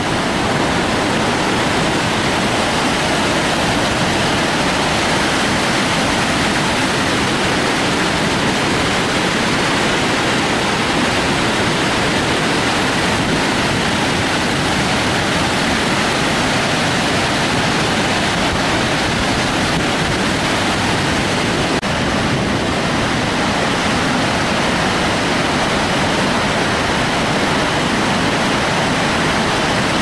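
A large river waterfall in heavy flow: a loud, steady, even rush of falling water with no break or change.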